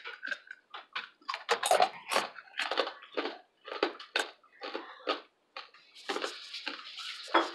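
Crisp, hard-cooked bacon strips crackling as they are handled and pushed into place on a burger, in a run of short, irregular crunches.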